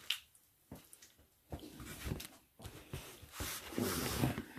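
Workbench handling noise: a few light clicks, then a few seconds of rustling and knocks, loudest near the end, as a metal speedometer/rev-counter housing and pliers are set down on a cardboard-covered bench.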